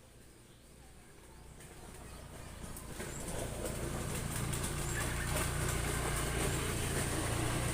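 A motor running, growing louder over the first four seconds and then holding steady, with a light crackling rustle over it.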